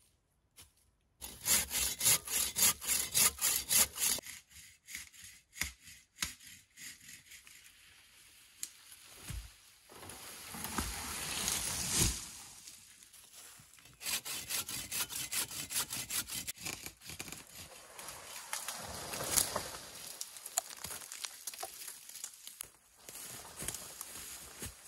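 Hand saw cutting through birch trunks in quick, even back-and-forth strokes, with breaks between bouts of cutting. About halfway through, a swelling rush ends in a thud.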